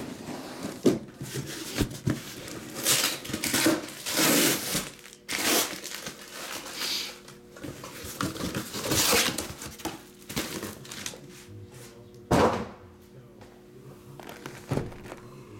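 Shrink-wrapped cardboard trading-card boxes being handled and set down on a table: a run of thunks, scrapes and plastic-wrap crinkling, with one sharp thunk about twelve seconds in.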